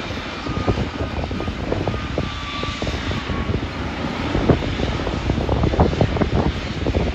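Jet airliner engines running: a steady rush of noise with a faint high whine, mixed with gusty wind buffeting the microphone.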